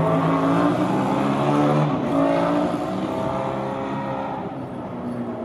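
Seibu 30000 series electric train pulling away, its inverter and traction motors whining in several shifting tones as it accelerates. The sound fades over the last second or two as the train draws off.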